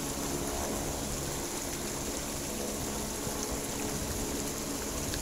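Search-and-rescue helicopter running steadily nearby, its engine drone mixed with the rush of a waterfall.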